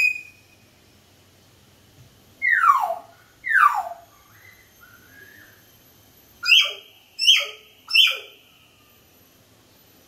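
Sun conures calling: two loud whistles that slide down in pitch a few seconds in, some soft chatter, then three short, sharp calls about three-quarters of a second apart in the second half.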